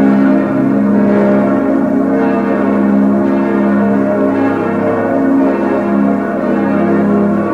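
Full peal of six bronze church bells cast by Schilling in 1958, tuned A-flat, B-flat, D-flat, F, A-flat, B-flat, all ringing together. The strokes overlap continuously over a steady hum of lingering bell tones.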